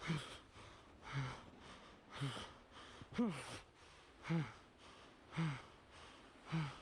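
A person breathing hard with exertion, a voiced, falling gasp or groan on each breath, about once a second, with one longer, higher one near the middle.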